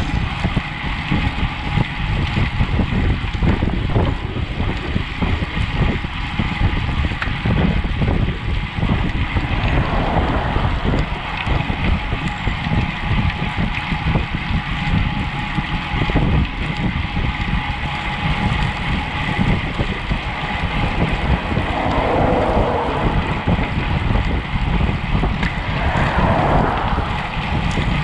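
Steady rushing wind noise buffeting the microphone of a camera mounted on a road bike ridden at speed.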